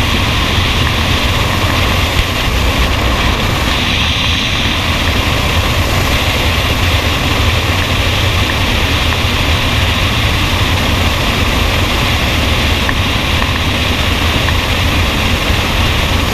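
Loud, steady rush of freefall wind buffeting a skydiver's helmet-camera microphone.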